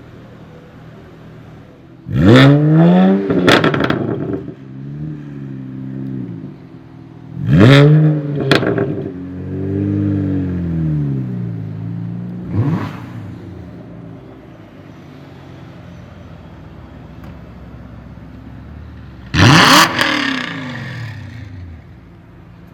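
Tuned BMW 1M Coupé's twin-turbo inline-six revved hard three times, each rev rising quickly and falling away, with sharp pops and crackles from the exhaust as the throttle closes. Between the revs the engine settles to a low steady running note.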